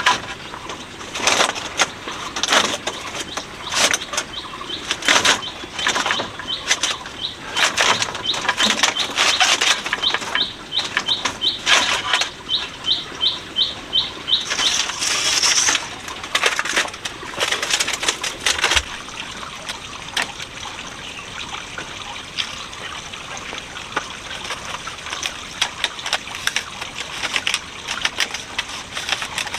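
Irregular sharp knocks and taps of hand tools working wood, with a quick run of short, evenly spaced strokes in the middle. The knocking stops about two-thirds of the way through, leaving steady outdoor background noise.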